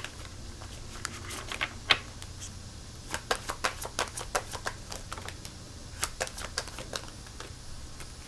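A deck of tarot cards shuffled by hand, the cards clicking and snapping against each other in three runs of quick clicks with short pauses between.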